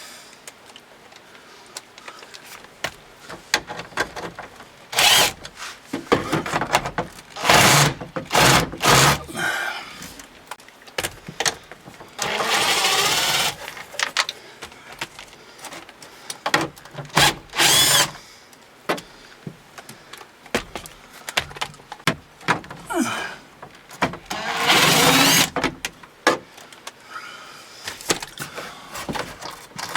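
Power drill with a socket bit spinning out small hex-head screws from a truck's dash in short bursts, the longest about a second and a half. Clicks and light knocks of the bit and screws come between the bursts.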